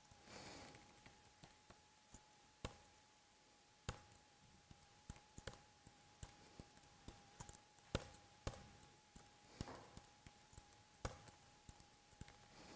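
Faint computer keyboard keystrokes, scattered single clicks at irregular intervals as code is typed, over a faint steady tone.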